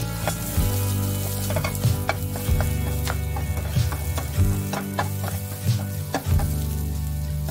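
Bell pepper and onion chunks sizzling as they stir-fry in a hot nonstick frying pan, pushed around with a wooden spatula that knocks and scrapes against the pan again and again.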